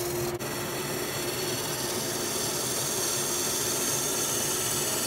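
Wood lathe running with a turning tool cutting into the spinning black walnut blank: a steady hiss of cutting over the machine's hum, with a brief drop about half a second in.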